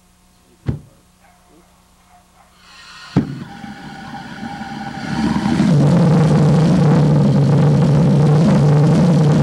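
Gluhareff G8-2 propane pressure jet engine: two sharp pops, then its noise builds over a couple of seconds and settles into a steady, loud roar with a low droning tone as it comes up to full running.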